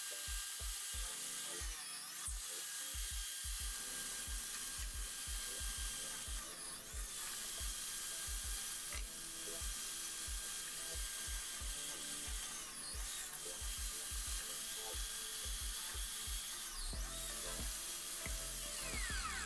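Benchtop drill press running and boring holes through small wooden pieces, with a steady whine and hiss. Background music with a regular beat plays underneath.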